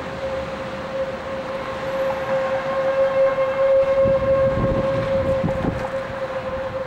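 Outdoor tornado warning siren sounding a steady tone that swells and fades slightly. About four seconds in, a low rumbling noise rises under it for a couple of seconds.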